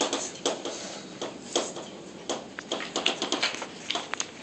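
Chalk writing on a blackboard: a run of sharp, irregular taps, several a second, as the chalk strikes and moves across the board.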